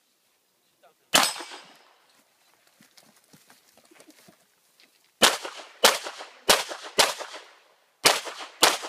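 Pistol shots fired during a practical shooting stage. A single shot comes about a second in, then a pause of about four seconds, then six quick shots about half a second to a second apart, each followed by a short echo.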